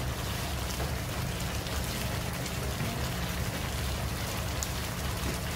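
Chicken adobo sizzling in its reduced sauce in a nonstick pan: a steady crackling hiss with small scattered pops, over a low steady hum.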